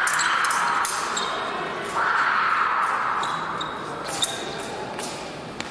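Épée bout in progress: several sharp clicks of steel blades meeting, some with a short metallic ring, and fencers' feet thudding on the piste, over a steady background noise.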